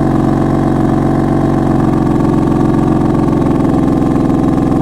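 BMW F82 M4's twin-turbo S55 inline-six idling steadily with the exhaust valves closed, through the stock exhaust fitted with catless downpipes and a tune.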